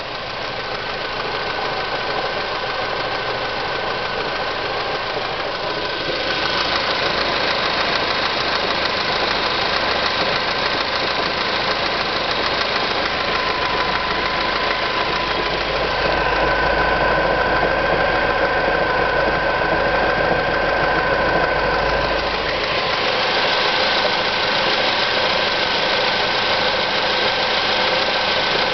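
Ford S-Max engine running steadily with an extraneous noise that the owner takes for abnormal. Steady high tones ride over the engine and grow stronger for several seconds midway, with a deeper rumble joining them for a while.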